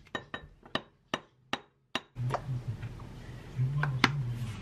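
A spoon knocking against the rim of a glass about six times, roughly every 0.4 s, to shake off thick Greek yogurt, each knock with a short ring. Fewer, scattered knocks follow in the second half.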